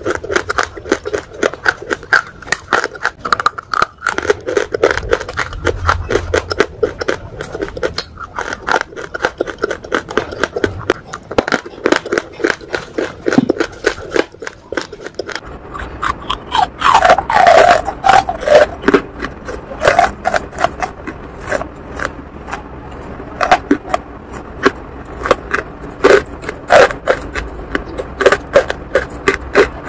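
Close-miked crunching and chewing of hard, brittle chunks, a fast run of sharp cracking bites. About halfway through it changes to louder, more separate bites of lumps of charcoal.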